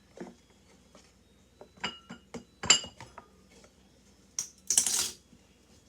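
Small utensils clinking and tapping against dishes, a few sharp clicks in quick runs, then a short scrape about four and a half seconds in, as baking soda is measured out with spoons.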